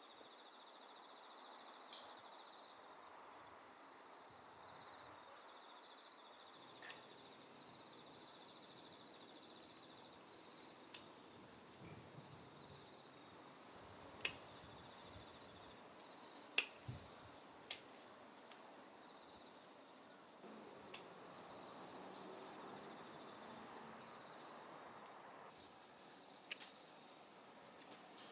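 Crickets trilling steadily in a fast, pulsing chorus, with other insects chirping higher above it. A few sharp clicks stand out around the middle.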